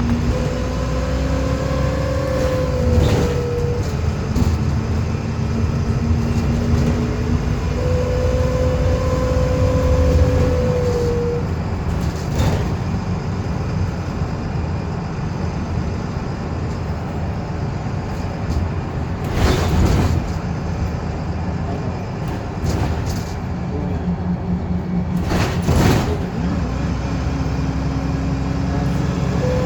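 VDL SB200 Wright Commander bus under way: a steady low engine and road rumble with a whirring whine that climbs slowly in pitch and then drops out, three times. A few sharp rattles or knocks break in along the way.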